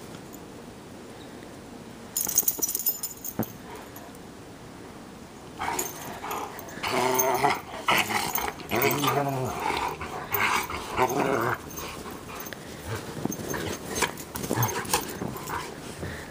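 Bernese Mountain Dogs play-growling at each other while wrestling. The growls start about five seconds in, are loudest in the middle and go on more lightly to the end. A brief rustling burst comes about two seconds in.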